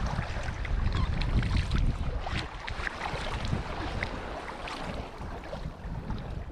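Wind buffeting the microphone over lake water splashing and slapping against a kayak's hull as it moves under sail. The sound is a steady rush with many small splashes scattered through it.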